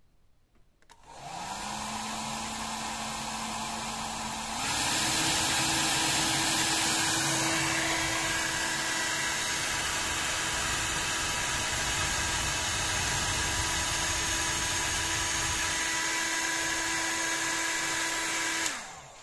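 Xiaomi Compact Hair Dryer H101 switched on about a second in, its motor whine climbing quickly to a steady pitch over the rush of air. About four and a half seconds in it steps up to a louder, higher-pitched speed, runs steadily, then switches off and winds down near the end.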